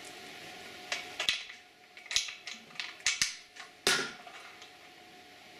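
Sharp metallic clinks and knocks, about seven in all, spread over the first four seconds, with the loudest near four seconds in: internal parts and hand tools being handled during the teardown of a Briggs & Stratton lawn tractor engine.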